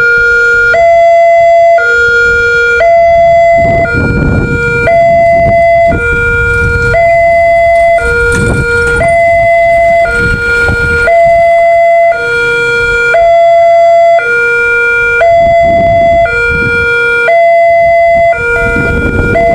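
New electronic siren at a railway level crossing sounding its warning: two tones, a lower and a higher one, alternating about once a second without a break. This is the signal that a train is approaching and the barriers are closing. Low rumbling noise runs underneath at times.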